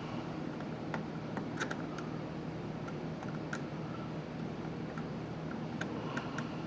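Hand screwdriver driving a screw back into an emergency stop button housing: scattered small irregular clicks and ticks over a steady low hum.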